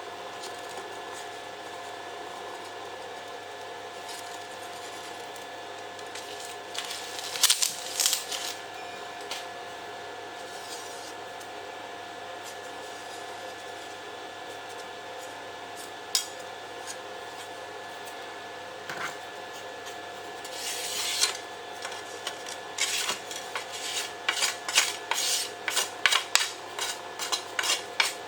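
Small CNC router spindle running with a steady whine while it machines 2 mm aluminium sheet, with occasional metallic scraping as the cutter bites. Near the end the scraping comes in quick repeated strokes.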